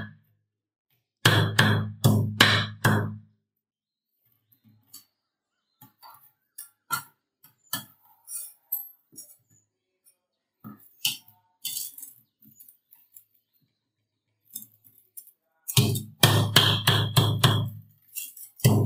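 Background music with a steady beat plays briefly near the start and again near the end. Between the two passages come scattered light metallic taps, clinks and scrapes of a hand tool on a rusty steel trowel blade, chipping dried cement off it.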